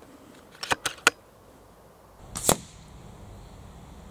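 Air rifle being worked and fired: a quick cluster of sharp clicks about a second in, then a louder single crack about two and a half seconds in.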